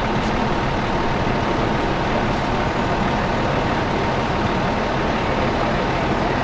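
Heavy diesel emergency vehicle idling, a steady loud engine rumble with a faint constant hum and no change in level.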